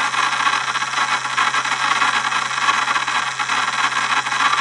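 24-volt e-bike gear reduction motor running unloaded at 48 volts, double its rated voltage: a loud, steady whir of the motor and its reduction gears with a low hum beneath.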